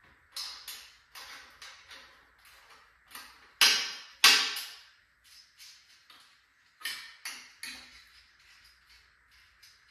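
Clicks, clinks and knocks of metal parts and hand tools being handled while a hive lift is taken apart, irregular and uneven in loudness, with two louder bangs about three and a half and four seconds in and another flurry about seven seconds in.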